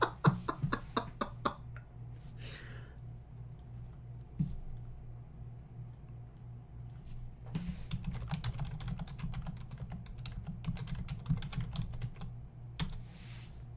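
Typing on a computer keyboard: a short run of rapid key clicks at the start, then a longer run of typing after a pause of several seconds, over a steady low electrical hum.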